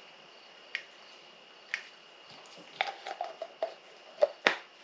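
Sharp clicks and crackles of plastic parts being handled: two single clicks about a second apart, then a quick run of clicks, with the two loudest near the end.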